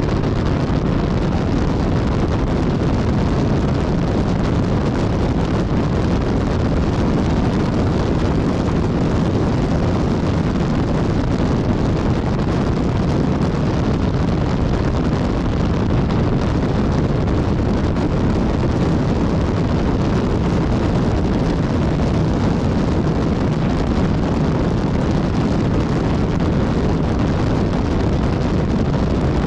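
Steady wind noise buffeting the microphone of a BMW S1000XR motorcycle riding at speed, with the bike's running sound buried underneath it.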